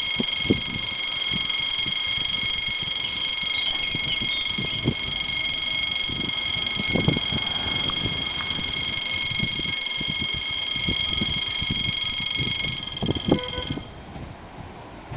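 Level crossing warning ringer sounding a steady electronic bell-like ring while the half-barriers lower. It cuts off about 13 to 14 seconds in, once the barriers are down.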